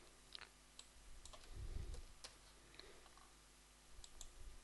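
Faint computer mouse and keyboard clicks: a handful of scattered single clicks, with a soft low bump about a second and a half in.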